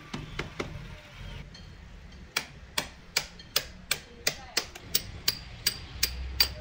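Hammer striking a flat blade driven into the seam between a lead-acid battery's plastic lid and case: a few light taps, a pause, then a steady run of sharp strikes about three a second, several with a short metallic ring. The blows are cutting the battery's lid free from its case.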